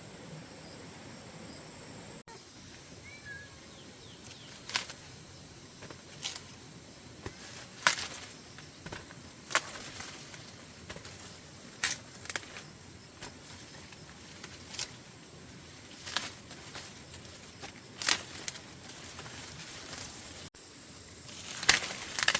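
Irregular sharp snaps and rustles, roughly one every one to two seconds, over a faint steady outdoor background.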